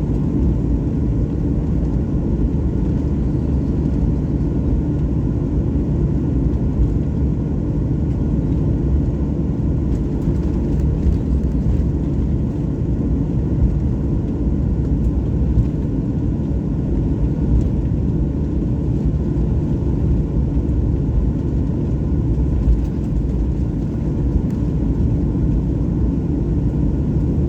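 Steady low rumble of a jet airliner's engines and airflow in flight, heard from inside the cabin, with no change in pitch or level.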